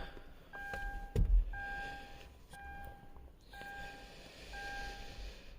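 Electronic warning chime in a car beeping steadily about once a second, five even beeps, with a single dull thump a little over a second in.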